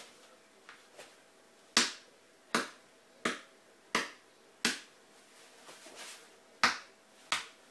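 Metal pliers struck hard against a G-form knee pad worn on the knee, an impact test of the pad: seven sharp smacks, five in quick, even succession, then after a short pause two more.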